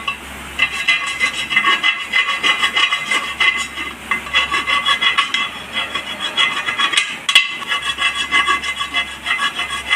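A hand file rasping back and forth over a motorcycle wheel rim in quick repeated strokes, with a metallic ringing. There are brief pauses about four seconds in and again past seven seconds. The strokes smooth away rough tyre-lever marks so that a new inner tube will not be chafed through.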